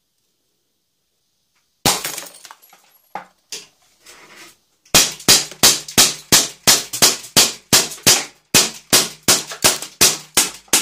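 A loud sharp crack with a short crackling clatter, then from about five seconds in a fast, even string of sharp shots, about three a second, from a CO2-powered Umarex Beretta 90two airsoft pistol, with 6 mm BBs striking a plywood board.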